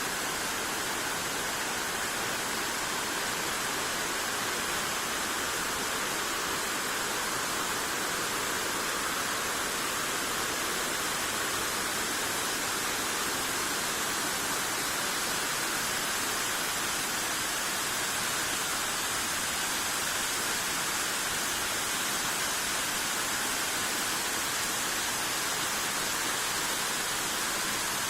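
Olginsky waterfall: water falling in a steady, even rush.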